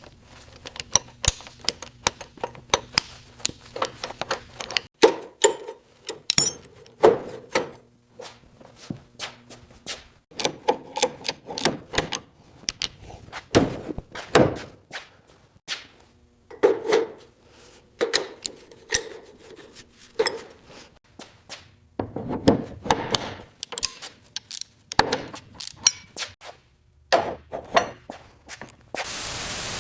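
Hand tools working by hand: an irregular run of sharp taps, clicks and knocks, with a louder thud every few seconds.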